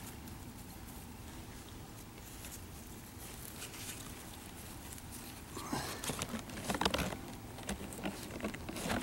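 Light rustling and scattered soft taps as the leaves and stems of a potted gerbera daisy are handled, starting a little past halfway, over low steady background noise.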